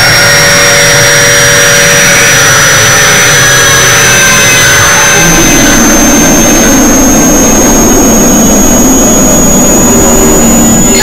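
A deliberately harsh, very loud mashup of layered noises: a piercing high tone creeping slowly upward in pitch over a dense, roaring wash of sound. The lower layers shift about five seconds in.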